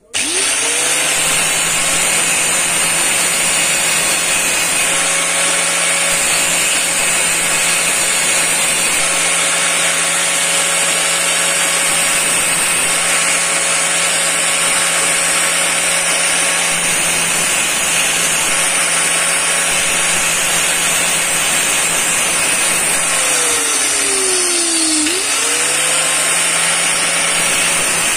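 Electric angle grinder spinning up and running steadily while a thin steel pick is ground against the edge of its abrasive disc. About 23 seconds in, the motor's pitch sags under the load and climbs back up within about two seconds.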